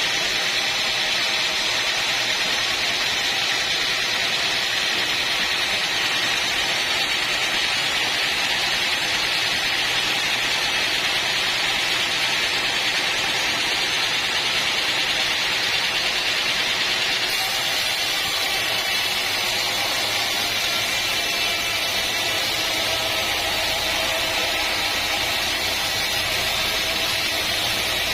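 Machinery running steadily with an even, hissing whir, its tone shifting slightly about two-thirds of the way through.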